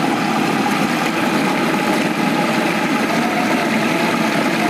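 Food processor motor running steadily at full speed, pureeing roasted red peppers with canned plum tomatoes into a thin liquid.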